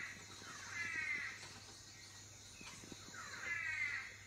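A bird calling twice, about two and a half seconds apart, from a wildlife documentary playing on a television's speakers.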